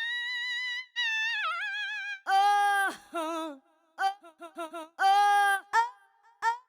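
Korg Triton Extreme VST software synth playing pitched, voice-like sample notes. A tone glides up and holds with a wobble. Louder held notes follow at a lower pitch, broken by a quick run of short notes.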